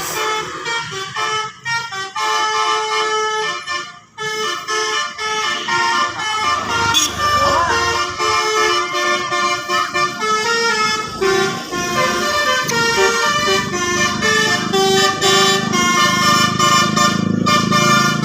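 'Telolet basuri' multi-tone bus horn playing a tune of stepped notes. A bus engine runs low underneath from about the middle on.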